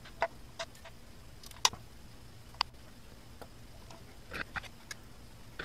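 Scattered sharp metallic clicks and clinks of a socket wrench working the oil pan bolts, the loudest about a second and a half in.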